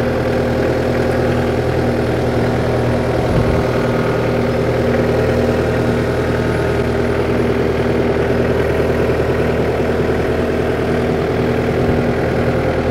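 New Holland Boomer 50 compact tractor's diesel engine running at a steady, even pitch as the tractor backs slowly over the mower deck in low range and four-wheel drive.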